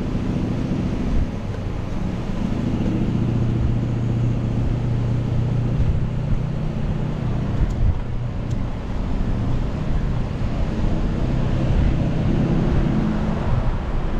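Wind rushing over the microphone of a moving bicycle, with a steady low hum from a car driving just ahead.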